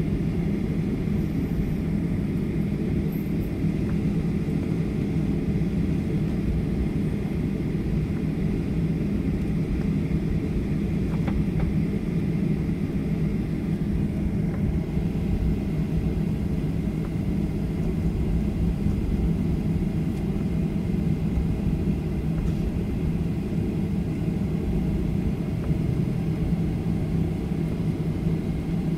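Steady low drone of a Boeing 737-900's CFM56-7B jet engines at idle while taxiing, heard inside the passenger cabin, with a constant low hum under it.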